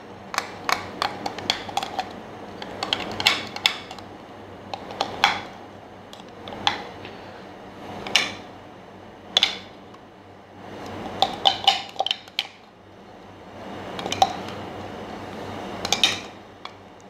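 Irregular clicks, taps and knocks of a grinder jar being handled and knocked to loosen ground paste, some in quick clusters and a few louder, with softer scraping and rubbing noises in between.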